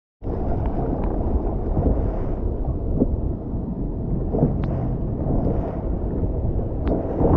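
Wind buffeting the microphone over choppy open-ocean swell: a dense, steady low rumble with water washing, broken by a few brief sharp clicks.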